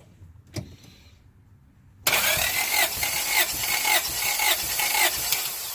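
1996 Honda Prelude Si engine cranking on its starter motor for a dry compression test, with an even rhythmic chug. It starts about two seconds in and stops near the end, a roughly three-second crank to let the gauge reach its highest reading.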